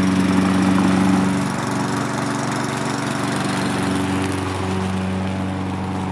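Petrol walk-behind lawn mower's small engine running steadily as the mower is pushed across grass, a little quieter from about a second and a half in.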